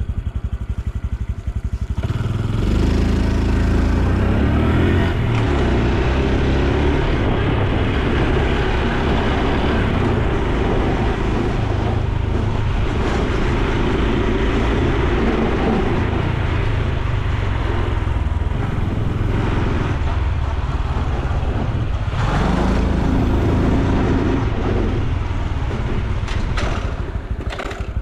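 Exhaust and engine of a Honda Super Cub C125, a single-cylinder 125 cc four-stroke motorbike, running while it is ridden. The engine note picks up about two seconds in, then runs steadily with changing pitch as the speed varies.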